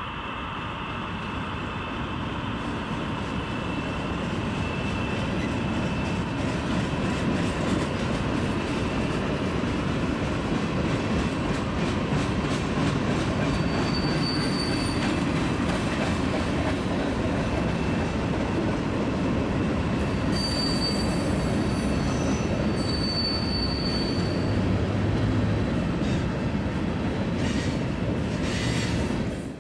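HO-scale model freight train rolling past on the layout track: a steady rumble and clatter of wheels on rail, with brief high-pitched wheel squeals about halfway through and again later. It grows louder over the first few seconds as the cars come close, then cuts off abruptly at the end.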